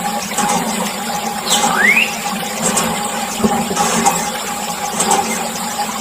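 Water pouring and splashing over the steady hum of a small electric motor, typical of a miniature model water pump running. A short rising squeak comes about two seconds in.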